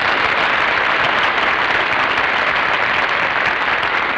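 Studio audience applauding, a loud, steady wash of clapping.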